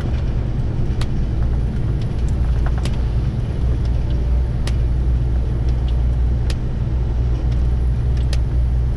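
Truck running steadily at road speed, heard inside the cab: a low, even engine drone with road noise. A sharp short tick comes about every two seconds.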